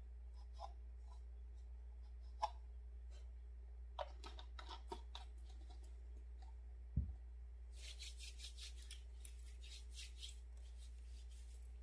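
Plastic oil bottles and caps handled on a tabletop: scattered light clicks, a dull thump about seven seconds in, then a quick run of crisp clicks and crinkles, over a steady low hum.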